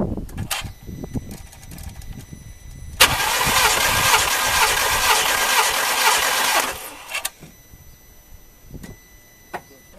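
Compression tester's release valve opened, letting the trapped cylinder pressure out of the gauge hose in a loud hiss that starts about three seconds in and lasts nearly four seconds, so the gauge drops back to zero. A few faint clicks come before and after it.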